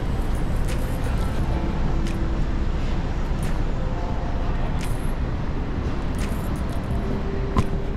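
Busy city street ambience: a steady rumble of road traffic with snatches of passers-by's voices, and a faint tick about every second and a half.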